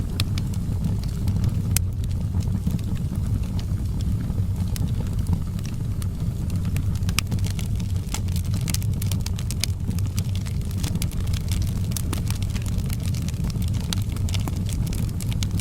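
Wood fire crackling in a fireplace: scattered sharp pops and snaps, irregular and of varying loudness, over a steady low rumble.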